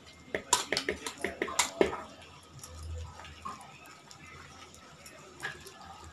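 A hand mixing coarse mung dal paste and chopped colocasia leaves in a steel bowl. There is a quick run of light clicks and clinks for about the first two seconds, then softer handling, with a few more clicks near the end.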